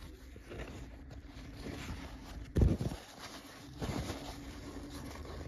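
Handling noise from a paper towel being rustled close to the microphone, with a loud dull thump about two and a half seconds in and a softer one near four seconds.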